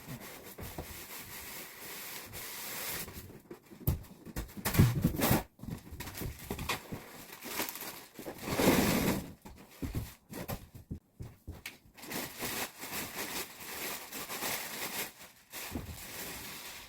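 Packaging rustling and crinkling while parts are unpacked from a miter saw kit box, with a few knocks as items are handled; the loudest moments come about five and nine seconds in.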